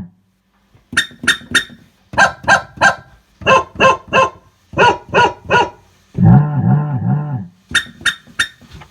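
A dog barking sound effect: quick, identical barks in sets of three, repeated four times, then a longer, low, wavering call about six seconds in, followed by one more set of three barks.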